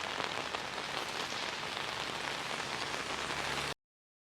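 Steady rain falling, cutting off abruptly near the end.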